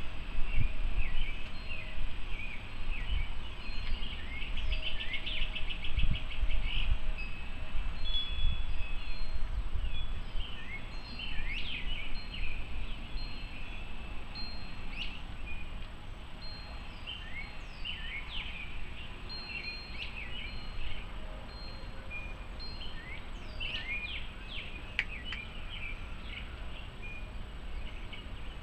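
Many small birds chirping and calling, with the light ringing of metal wind chimes. Low gusts of wind buffet the microphone during the first ten seconds or so.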